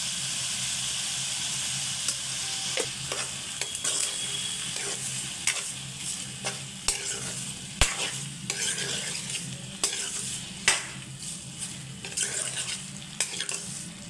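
Mutton and liver pieces sizzling in oil in a black kadai as a metal spatula stirs in the freshly added salt, turmeric and ginger-garlic paste. From about two seconds in the spatula scrapes and knocks against the pan many times, with a sharper knock near the middle.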